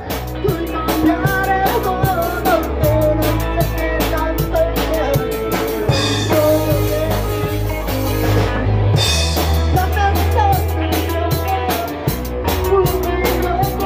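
A rock band playing a song: drum kit keeping a steady beat with regular hi-hat ticks, bass guitar holding long low notes, and guitar with a wavering lead melody on top. About six seconds in, the ticking gives way to a sustained cymbal wash for about three seconds before the beat returns.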